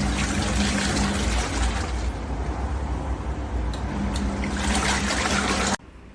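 Mini single-tub washing machine running, water churning in the tub over a steady motor hum; it cuts off suddenly near the end.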